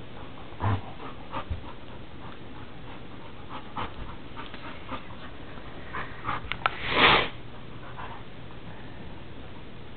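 Dogs panting and sniffing, with scattered short scuffles and clicks and one louder noisy burst about seven seconds in.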